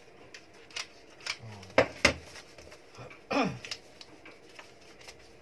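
Wrapping paper crinkling in a few short sharp rustles and taps as it is folded around a small box.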